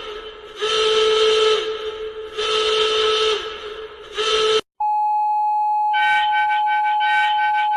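Emergency alert alarm tones. A harsh, hissy pitched tone sounds in blasts of about a second with short gaps between them. A little over halfway through it cuts off abruptly and gives way to a steady single high tone, which about a second later is joined by a pitched beeping pattern pulsing about three times a second.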